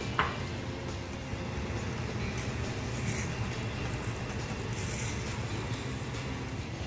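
Omelette cooking in a stainless steel frying pan on a lit gas burner: a steady low rumble, a short click just after the start, and faint brief scraping from a spatula in the pan a few seconds in.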